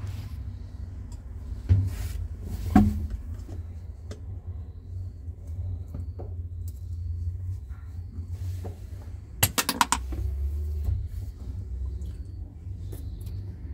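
A thin pointed tool tapping and prying at the plastic centre cap of a Samsung top-loader's pulsator, with a few sharp clicks early on and a quick rattle of clicks about two-thirds of the way through as the cap comes out. A low steady rumble runs underneath.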